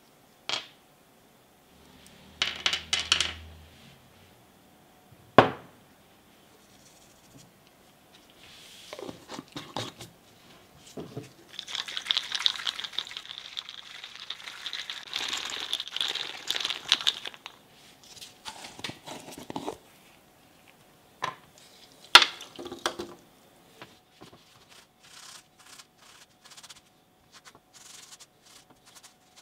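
Small steel sleeves from a pipe cutter being handled on a wooden workbench: a few sharp clicks and a short clatter as the metal parts are set down. In the middle there is a rough, noisy stretch of several seconds, and near the end a sharp click and light ticks.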